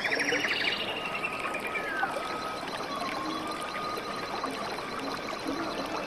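Steady rush of water running over small forest cascades into a pool. High whistled calls sound over it, with a fast trill near the start and a long whistle followed by a rapid high ticking later on.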